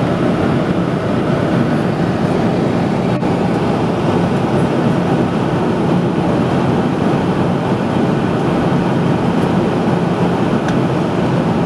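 Steady cabin noise of an airliner in flight on approach, a constant engine hum heard from inside the passenger cabin.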